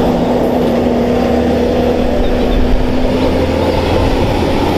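Heavy truck's diesel engine running steadily as a truck-mounted concrete pump drives past, with other road traffic: an even engine drone.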